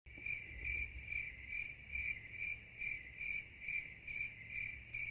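Crickets chirping in an even, steady rhythm of about two and a half short high-pitched chirps a second, over a faint low rumble.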